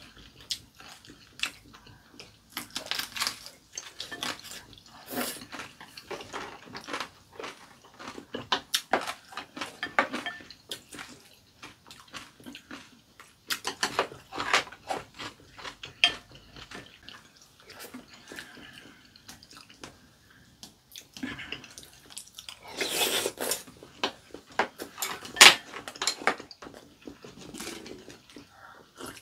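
Two people eating a soup of sujebi (hand-torn dough in broth): slurping, chewing, and spoons and chopsticks clicking against ceramic bowls. The loudest slurps and clinks come about two-thirds of the way in.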